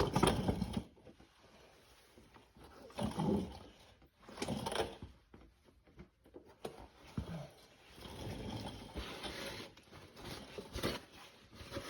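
Irregular scraping, rustling and small clicks of hand tools working at the old transmission filter seal in the 4T65E's case bore, in several short bursts with a longer scrape near the end.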